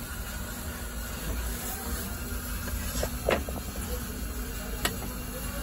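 Steady hiss and low rumble from a hot flatbread oven, with a few light metal clicks as a flatbread on a metal peel is slid onto the oven's perforated metal tray, about three seconds in and again near the end.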